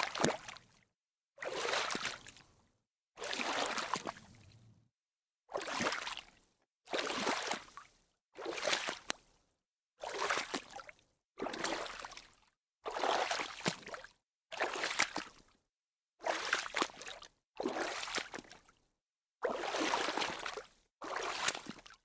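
Water splashing in a series of separate splashes, each lasting about a second, with short silent gaps between them, about fourteen in all.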